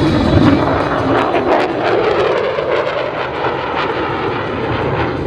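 Lockheed Martin F-35A's single Pratt & Whitney F135 afterburning turbofan: loud jet noise from the fighter flying a loop. The pitch of the noise shifts as it goes, with a spell of crackle between about one and two seconds in.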